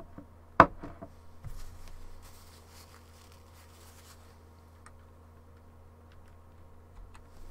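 Quiet small-room tone under a steady low hum, with one sharp click about half a second in and a little faint rustling just after.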